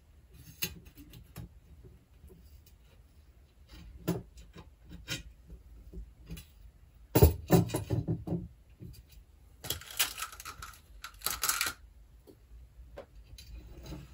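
Bicycle spokes clicking and clinking against the hub and rim as a wheel is laced by hand. There is a louder knock about halfway through, then two short scraping rustles.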